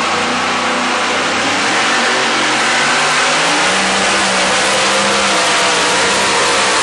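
Two-wheel-drive pulling truck's engine running at full throttle as it drags the weight-transfer sled down the dirt track: a loud, dense, steady engine noise.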